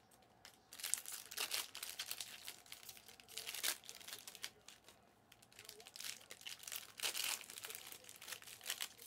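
Wrapper of a Panini Prizm Fast Break trading card pack crinkling and tearing as it is opened and handled, in irregular crackly bursts with short pauses between them.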